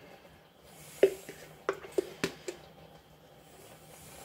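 A spoon knocking and scraping against a mayonnaise jar while scooping mayonnaise out: about five sharp clicks with a brief ring, bunched between about one and two and a half seconds in.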